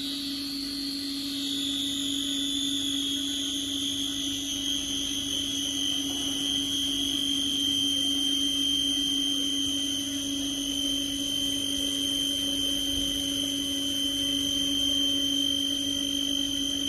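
Two-head vertical glass drilling machine running, its electric drill motors humming steadily while the core bits grind into thick glass with a high-pitched whine. The whine settles slightly lower in pitch in the first few seconds and then holds steady.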